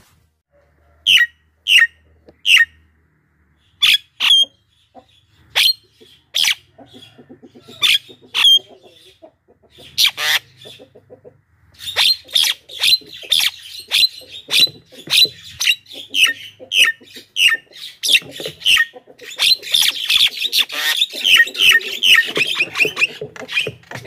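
Javan myna calling: sharp, harsh single notes spaced a second or so apart at first, then from about halfway a fast, unbroken run of chattering calls that grows denser and louder near the end.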